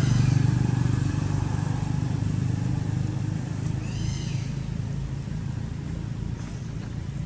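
Steady low drone of a motor vehicle engine running close by, loudest in the first couple of seconds and slowly fading. About four seconds in, one short high call rises and falls.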